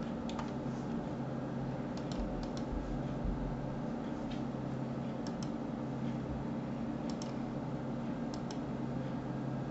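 Scattered faint clicks of a computer mouse: button presses, several in quick pairs, and scroll-wheel ticks. A steady low hum runs underneath.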